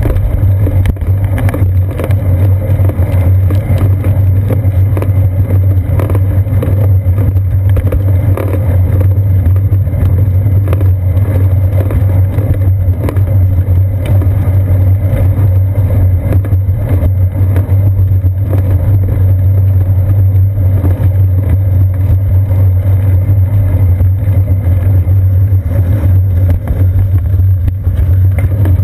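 Loud, steady low rumble of a moving bicycle picked up by a seat-post-mounted GoPro Hero 2: wind on the camera and tyre-on-pavement vibration carried through the frame, with frequent small knocks from bumps in the path.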